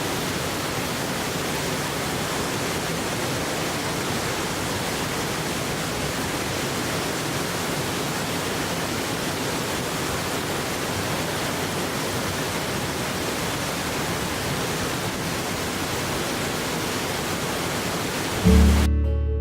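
Waterfall rushing: a steady, even roar of heavy falling water. Strummed acoustic guitar music comes in near the end.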